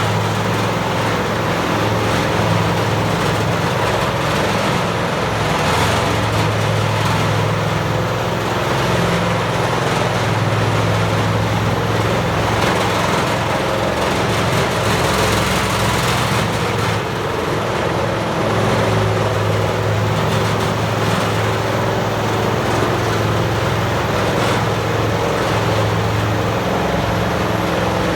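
Peterson 2710D horizontal wood grinder running: its large diesel engine keeps up a steady low drone, with a dense rushing noise over it throughout.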